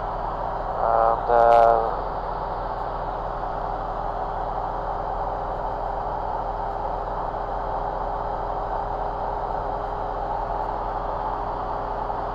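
Steady drone of a light aircraft's piston engine and propeller in cruise, heard in the cockpit through the headset recording. A brief snatch of voice cuts in about a second in.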